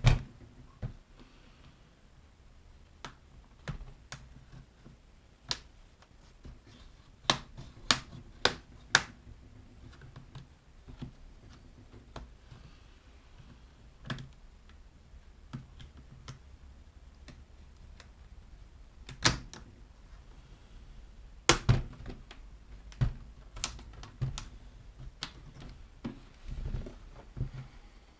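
Scattered sharp plastic clicks and snaps from the screen bezel of a Samsung NP350V5C laptop as its clips are prised apart, with a quick run of three loud snaps about eight seconds in and more around twenty seconds in.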